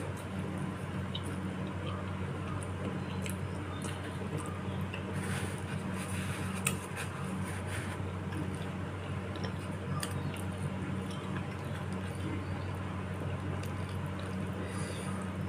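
Close-up wet chewing and squishy mouth sounds of someone eating bakso meatball soup with spinach, with occasional short clicks and one sharper click about seven seconds in, over a steady low hum.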